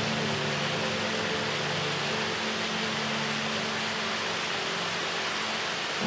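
Steady hiss of falling water, like rain, with soft sustained music tones underneath that fade away in the first half.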